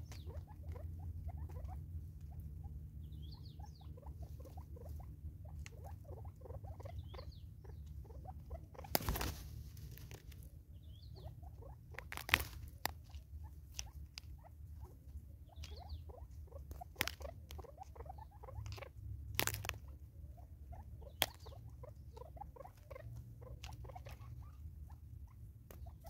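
Spurfowl and francolins pecking at seed on a wooden stump and in a plastic tub: a fast, irregular patter of small beak taps, with several sharper knocks scattered through, over a low steady rumble.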